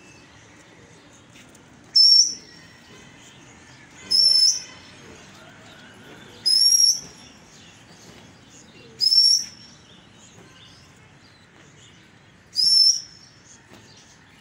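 Five loud, sharp whistles from a pigeon flyer, each rising quickly and then held for about half a second, repeated every two to three seconds to keep the released flock of pigeons flying. Faint chirping of small birds runs underneath.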